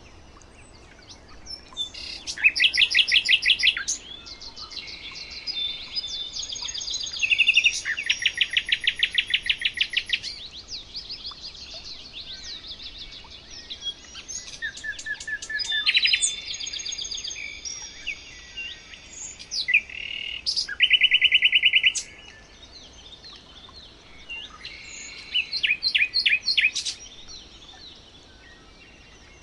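Birds singing: phrases of fast trills and rapid repeated chirps, several overlapping at different pitches, with short pauses between phrases.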